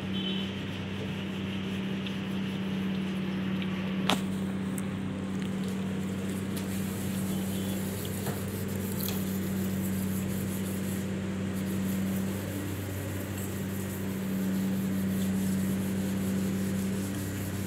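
Steady low electrical hum throughout, with faint rubbing of detailing clay over the wet, lubricated paint of a car bonnet. One sharp click about four seconds in.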